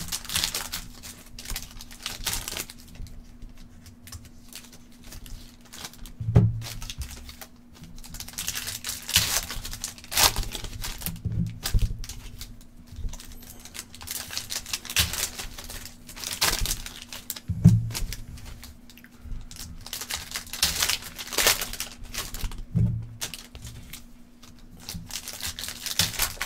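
Foil wrappers of Panini Contenders basketball card packs being torn open and crinkled by hand, in repeated bursts of crackling, with a few dull thumps in between and a faint steady hum underneath.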